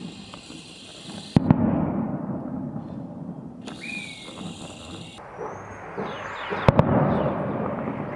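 Festival rockets (cohetes) going off in the distance: a sharp bang about a second in and another about five seconds later, each followed by a long rolling echo.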